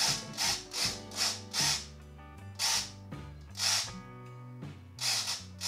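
Small RC servos whirring in short bursts, about ten at uneven spacing, as they drive the plane's elevons back and forth, over background music with a steady bass line.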